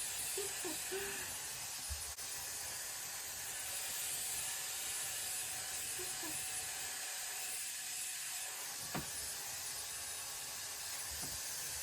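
YA-MAN hair dryer running steadily: an even rush of blown air with a thin, high motor whine over it.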